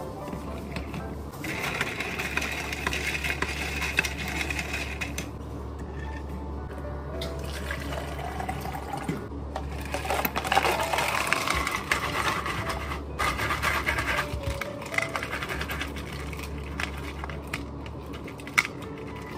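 Water and ice poured from a stainless steel pitcher into a tall plastic cup, ice clinking, the pour rising in pitch as the cup fills about ten seconds in.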